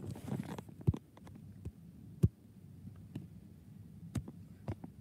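Handling noise from a phone being picked up and moved: a short rustle at the start, then a few dull thumps and knocks against its body, the loudest about two seconds in.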